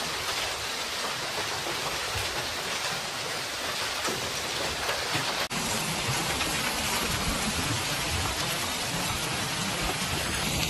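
Hailstones pelting down in a dense, steady clatter. About halfway through the sound changes abruptly, with more low thuds from larger impacts after the change.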